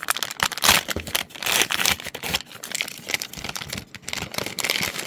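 Packaging of a toy surprise pack being torn open and crinkled by hand: a run of irregular crackles and rustles.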